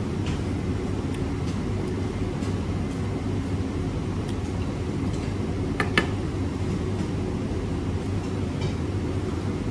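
Steady low background rumble, with a few faint clicks and one sharper click about six seconds in.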